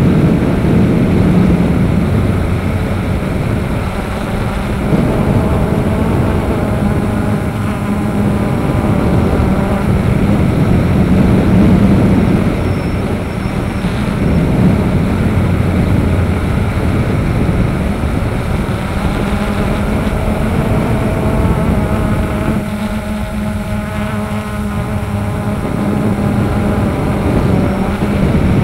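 A drone's motors and propellers whirring, recorded close by the craft's own camera: a continuous hum whose pitch wavers slightly as the motors adjust, over rushing air noise.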